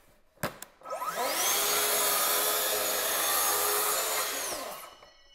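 Festool plunge-cut track saw starting up with a rising whine about a second in, then cutting a straight rip along its guide rail for about three seconds before spinning down near the end. A sharp click comes just before the motor starts.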